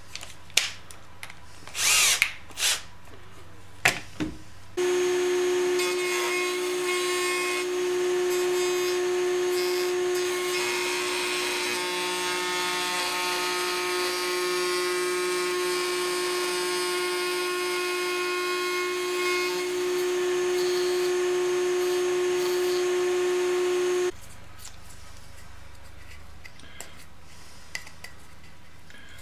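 A few handling knocks, then an electric power tool's motor runs at a steady pitch for about twenty seconds and cuts off abruptly.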